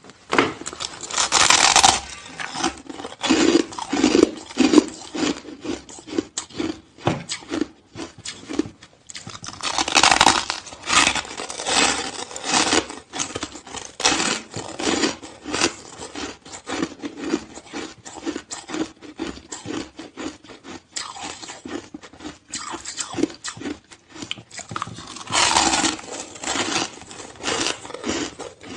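A person biting and chewing hard, crunchy shaved ice: a dense, continuous run of crunches, with louder bursts of crunching near the start, about a third of the way in, and near the end.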